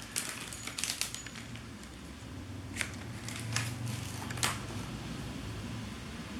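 Light handling noises: a few short clicks and rustles over a low steady hum.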